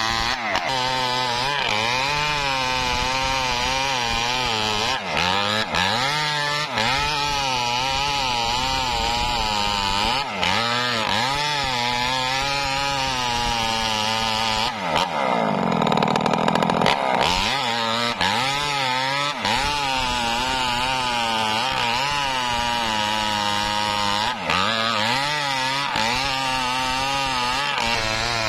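Two-stroke chainsaw running at high revs while cutting through a coconut palm trunk. Its pitch sags and recovers again and again as the chain bites, with several brief drops, and it revs higher for a couple of seconds around the middle.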